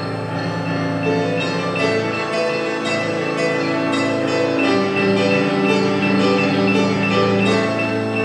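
Live music from a group playing instruments together: sustained chords that change a couple of times, over a steady beat.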